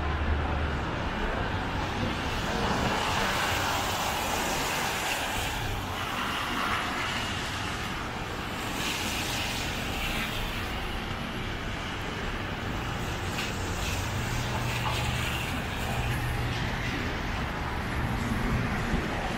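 City street traffic noise: a steady rumble of cars and other vehicles, swelling slightly now and then as vehicles pass.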